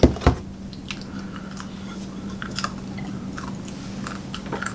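People chewing and biting food close to the microphone, with small mouth clicks and crunches scattered through. Two sharp knocks right at the start, over a steady low hum.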